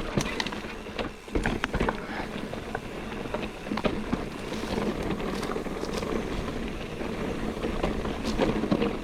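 Mountain bike rolling down a rough dirt trail: tyres rumbling over the ground, with scattered sharp knocks and rattles from the bike and wind noise on the microphone.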